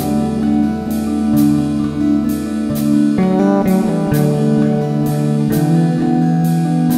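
Instrumental background music with a steady beat of about two strokes a second, played on drums, keyboards and fretless bass.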